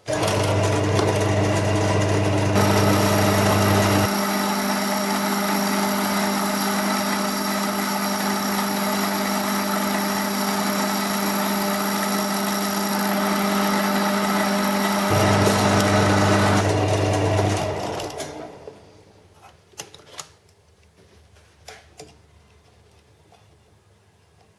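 Metal lathe running steadily with a motor and drive whine, starting abruptly. It shuts off about three-quarters of the way through and runs down, followed by a few light clicks.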